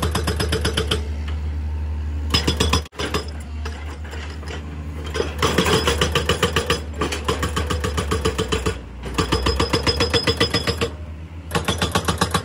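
Hydraulic breaker on a JCB JS205 excavator hammering at the ground in rapid, evenly spaced blows. It comes in several bursts with short pauses, and the excavator's diesel engine runs steadily underneath.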